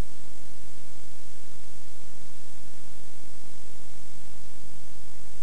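Loud, steady static hiss with a low mains hum underneath: the noise of a blank, black stretch at the end of an old off-air video-tape recording.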